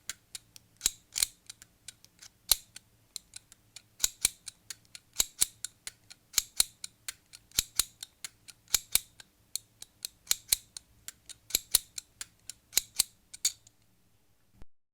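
Household scissors snipping: a series of sharp, crisp metallic clicks of the blades opening and closing at uneven intervals, stopping near the end.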